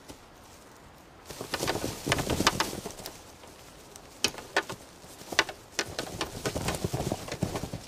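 A red deer stag moving over the ground, with a run of sharp clicks and knocks from hooves and the ground underfoot starting about a second in, and low cooing calls among them.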